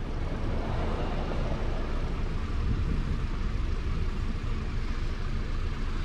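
A natural-gas 2012 Honda Civic's 1.8-litre four-cylinder engine idling steadily, running with a misfire on cylinder 3 (code P0303).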